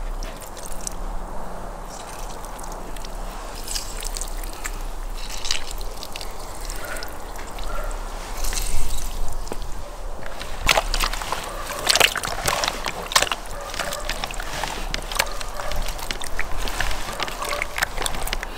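Lemon juice squeezed by hand and dripping onto raw sturgeon pieces in a plastic bowl. From about ten seconds in, wet squelching and slapping as hands mix the fish in its marinade.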